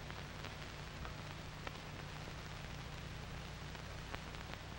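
Background noise of an old optical film soundtrack: a steady hiss over a low hum, with a few faint crackles.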